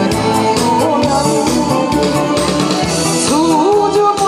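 A woman singing with vibrato into a microphone over an amplified backing track with a steady drum beat, played through PA speakers.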